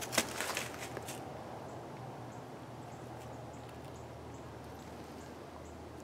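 Footsteps crunching on thin snow for about the first second, then only a faint, steady outdoor background.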